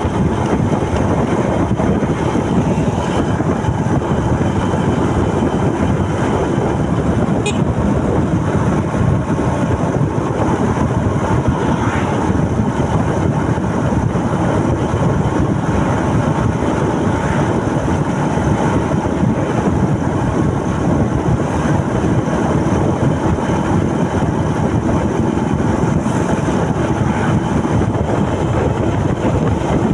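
Motorcycle riding at a steady speed: a constant rush of wind on the microphone mixed with engine and road noise.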